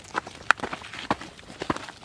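Footsteps of two people walking: an irregular run of short scuffs and clicks, several a second.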